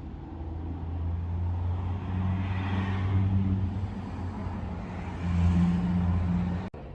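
A motor vehicle engine running nearby with a low steady hum that swells twice, then cuts off abruptly near the end.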